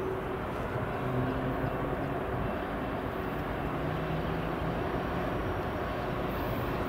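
Diesel-electric freight locomotives approaching with their engines running, a steady low drone with a few held low tones over the rumble.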